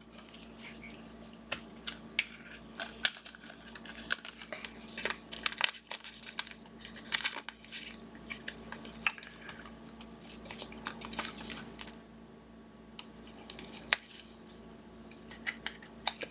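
Trading cards and their plastic packaging being handled: irregular crinkling, rustling and small sharp clicks, over a faint steady hum.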